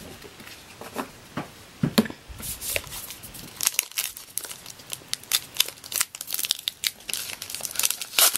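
Trading card pack wrapper being torn open by hand: irregular crinkling and tearing, sparse at first and much busier from about two and a half seconds in.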